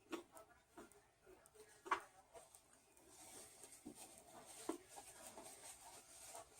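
Faint eating sounds: quiet chewing and a few small clicks and taps of food and packaging being handled, the sharpest about two seconds in.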